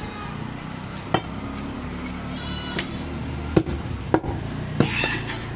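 A butcher's large knife chopping goat meat on a wooden stump block: several sharp, irregularly spaced chops. A rooster crows briefly about two and a half seconds in.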